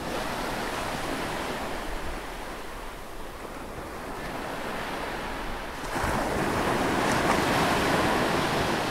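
Ocean surf: a steady wash of breaking waves that swells louder about six seconds in and eases off near the end.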